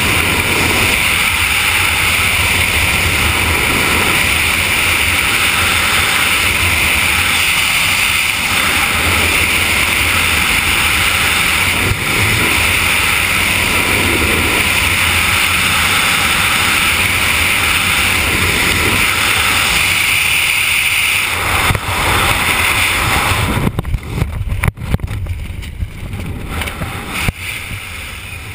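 Loud, steady wind rush buffeting a helmet-mounted camera in wingsuit freefall. About 23 seconds in it breaks up into ragged, uneven gusts and gets quieter.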